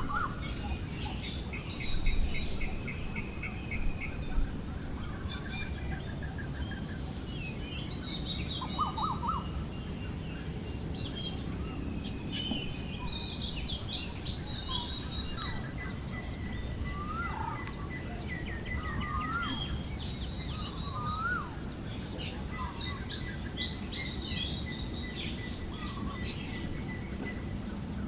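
A chorus of forest birds chirping and trilling in short, scattered calls, over a continuous high insect-like buzz and a low, steady wind rumble.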